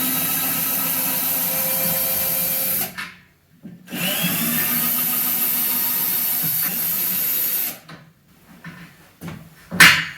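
Power drill running in two long runs of about three to four seconds each, backing screws out of the fittings of a mirrored closet door. A sharp knock follows near the end.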